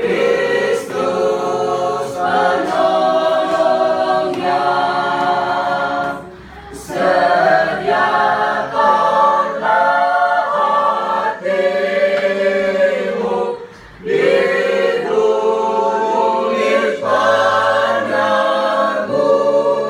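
Church choir singing in sustained phrases, with short pauses about six and fourteen seconds in.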